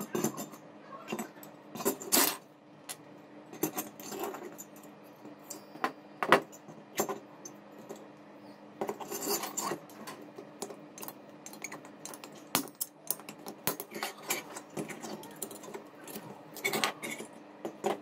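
Metal cooling fins of a microwave-oven magnetron clinking and scraping as they are handled and pried apart with a screwdriver: irregular metallic clicks and taps.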